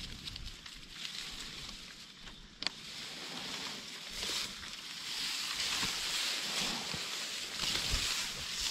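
Rustling and crunching of dry leaf litter and undergrowth underfoot and brushing past, irregular, with a sharp click about two and a half seconds in.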